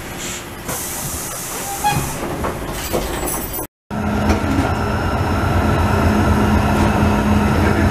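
Old Basel tram running on its rails, heard on board. There is a hiss in the first seconds, and the sound cuts out briefly about halfway. After that comes a steady hum with a low tone and a higher whine from the running gear while the tram is under way.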